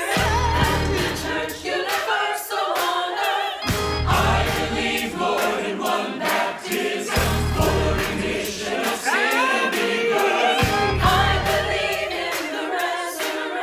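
Virtual choir of mixed voices singing a gospel-style song over an accompaniment with a steady beat and deep bass notes that come in every few seconds.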